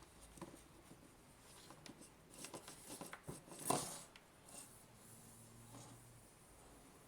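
Quiet handling noises: scattered light clicks and rubbing, with one louder knock about halfway through.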